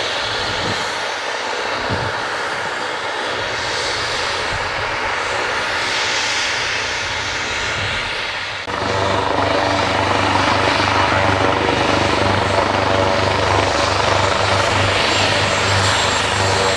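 Leonardo AW139 helicopter's twin PT6C turboshaft engines running on the ground with the rotors turning, a steady turbine whine and rush. About nine seconds in it turns abruptly louder, with a steady low beat from the rotor blades.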